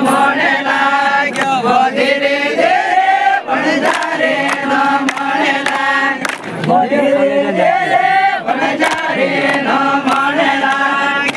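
Many voices singing a garba song together in unison, with sharp percussive strikes every second or so.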